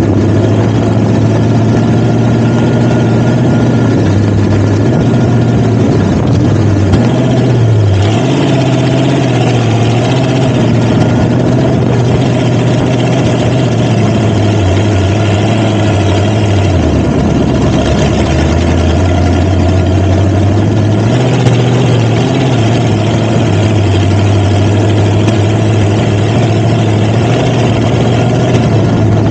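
Off-road vehicle engine running steadily while under way, its pitch dropping for a few seconds past the middle and then coming back up.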